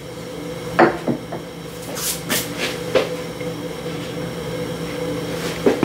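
Thick mushroom gravy simmering in a pan, with a handful of sharp bubble pops at irregular intervals over a steady low hum.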